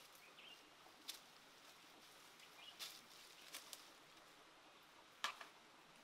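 Near silence with a faint steady hiss, broken by a handful of short sharp clicks: one about a second in, a pair near the middle and the loudest near the end. A couple of faint brief chirps sound early on and just before the middle.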